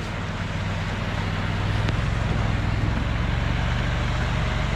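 Off-road vehicle engine idling with a steady low drone.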